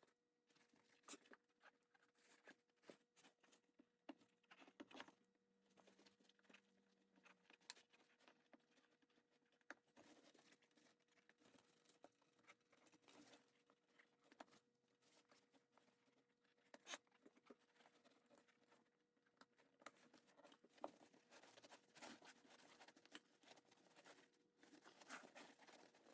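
Near silence: faint scattered clicks and short rustles of hands working on a car seat back, growing busier after about twenty seconds, over a faint steady hum.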